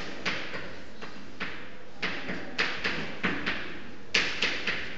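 Writing on a board: a string of about a dozen short, irregular scratchy strokes and taps.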